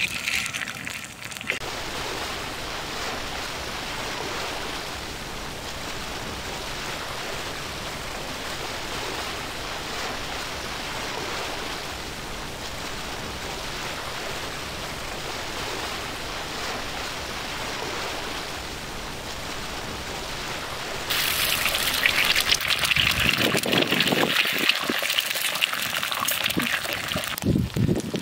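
Eggs frying in hot oil on a flat iron tawa, a steady sizzle that turns louder and more crackly about 21 seconds in.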